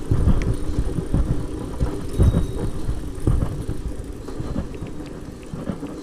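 Stalled go-kart being walked back by hand, its engine dead: a low rumble with irregular knocks and rattles as it rolls.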